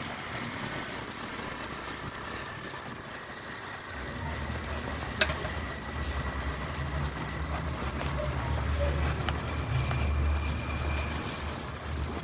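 Motorcycle engine running on the move, with road and wind noise; the low engine rumble grows stronger about four seconds in as the bike speeds up. A single sharp click sounds about five seconds in.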